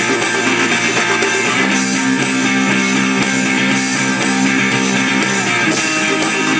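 Guitar-led rock music: a band playing with guitars and held chords.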